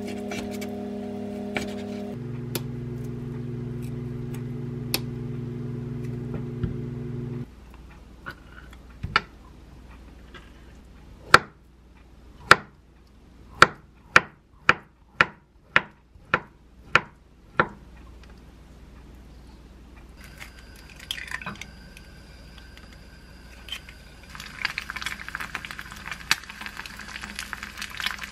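A steady low hum stops about seven seconds in. Then a chef's knife chops on a wooden cutting board as salmon is diced and an avocado sliced, the chops speeding up to about two a second. Near the end an egg starts sizzling as it fries in a ceramic pan.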